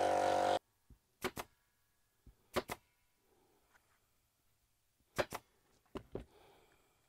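Pneumatic upholstery staple gun firing four times, each shot a sharp double snap, driving staples through fabric into a wooden panel.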